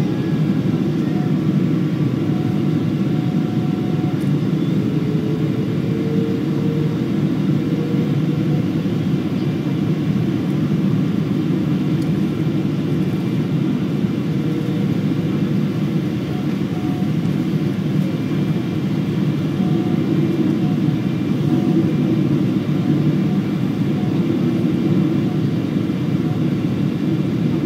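Airliner cabin noise during the landing approach: a steady, low drone of engines and airflow heard from inside the passenger cabin, with faint steady tones over it.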